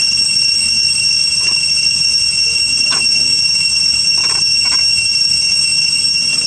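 Steady high-pitched drone of cicadas, holding several even tones without a break, with a few faint short knocks over it.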